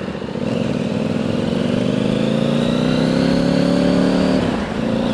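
Triumph America 790's parallel-twin engine pulling up through the revs under acceleration, heard from the rider's seat. Its pitch rises steadily, drops briefly about four and a half seconds in at a gear change, then starts rising again.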